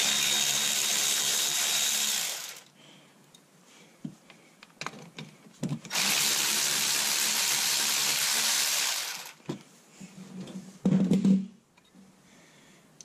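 Cordless electric ratchet running twice, for about two and a half and then three seconds, backing out the two 15 mm rear brake caliper bolts. A brief thump follows near the end.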